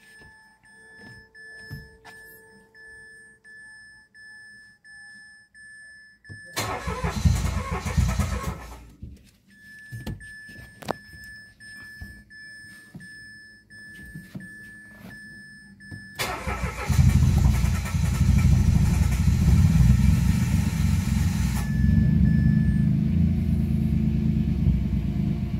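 Mitsubishi Mirage G4 engine being started: a first crank of about two and a half seconds that does not catch, then a second crank about ten seconds later on which the engine starts and keeps running steadily. A steady high beep sounds in the pauses between attempts. The crank-no-start fault was a stuck throttle body, now cleaned.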